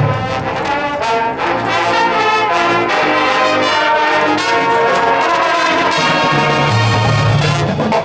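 Marching band brass section playing loud, held chords; drum strokes sound under it at the start and come back near the end.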